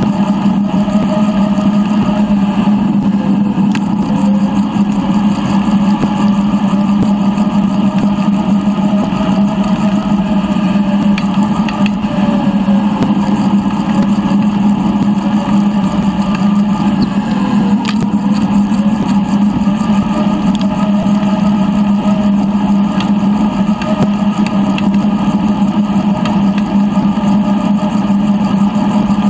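A steady, motor-like drone with a strong constant hum and fainter tones above it, its pitch wavering slightly now and then but never stopping.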